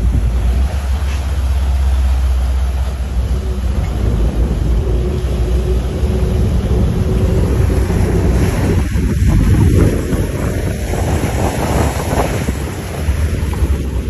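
Inboard engines of a custom Carolina sportfishing yacht running at low speed as it is manoeuvred to dock, with propeller wash churning the water and wind buffeting the microphone.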